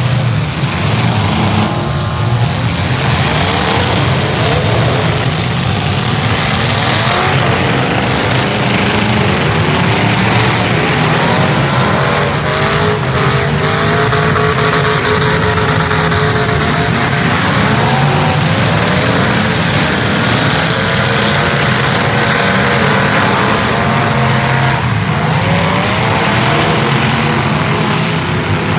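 Many demolition derby cars' engines running and revving at once, loud and continuous, with pitches rising and falling as the cars accelerate, and a few sharp bangs now and then.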